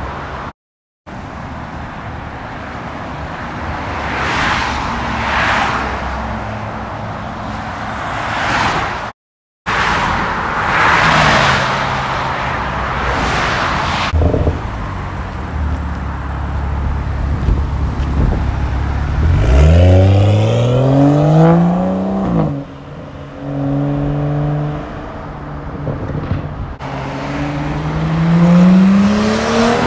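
Cars passing at speed with tyre and air rush swelling and fading, then car engines accelerating hard, the engine note climbing in pitch through the gears.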